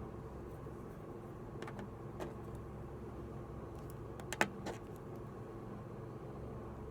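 A few light clicks and taps, as of tools or small parts being handled, the loudest about halfway through, over a steady low hum.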